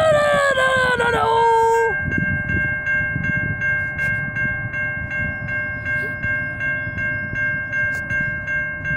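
Railroad crossing warning bell ringing steadily at about two strokes a second as the crossing gate arm lowers. Over the first two seconds a train horn sounds, falling in pitch before it stops.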